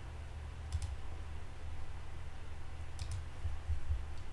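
Two brief double clicks, about a second in and again near three seconds, over a steady low hum.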